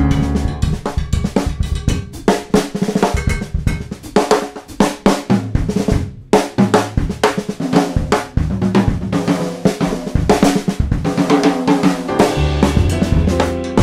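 Jazz drum kit soloing in a mambo groove, with snare, bass drum, hi-hat and cymbal strokes and a short break about six seconds in. The piano and upright bass drop out after about two seconds and come back in near the end.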